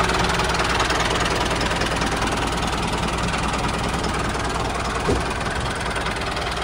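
Tractor engine running steadily at idle, with a faint short tick about five seconds in.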